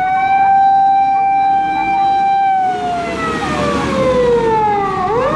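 Fire truck siren: a high wailing tone that holds one pitch for about two and a half seconds, slides slowly down, then sweeps quickly back up near the end, with a noisy rumble underneath as it falls.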